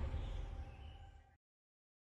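The tail of electronic outro music fading out, a few lingering tones dying away, then cutting to silence about a second and a half in.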